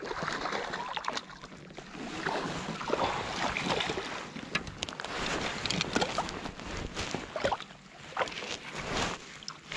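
Water splashing and sloshing as a hooked cutthroat trout is scooped into a landing net and thrashes in it beside a float tube, in irregular splashes with short sharp slaps.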